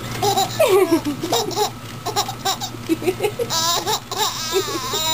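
Baby laughing in a run of short giggling bursts, with a longer, higher squeal of laughter about three and a half seconds in.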